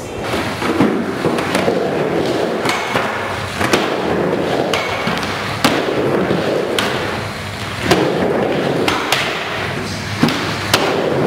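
Skateboard wheels rolling on a mini ramp, with repeated sharp clacks of the board and trucks striking the ramp and coping, several of them spaced about a second apart.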